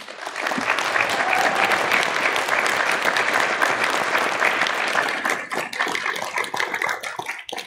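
Audience applauding, thinning out over the last two seconds into a few scattered claps.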